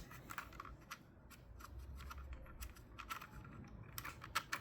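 Scattered light clicks and taps of small plastic drone parts being handled and worked by hand, over a faint low hum.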